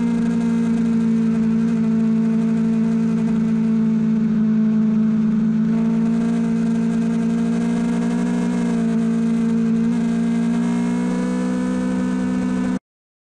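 Sportbike inline-four engine running at steady held revs on track, its pitch dipping and rising slightly a few times. It cuts off abruptly near the end.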